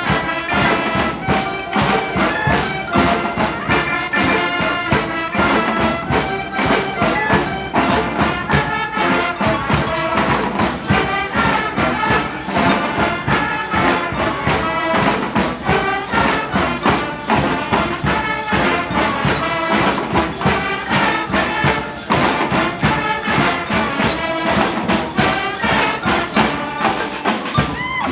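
Street brass band of trumpets and trombones playing a salsa tune over a steady drum beat.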